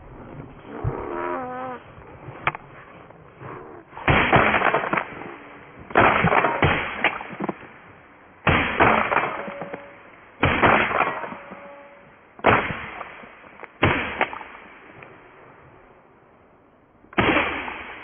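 Shotguns fired at a flock of geese overhead: about seven shots from two guns, one to three seconds apart, each dying away in a rolling echo over the open field.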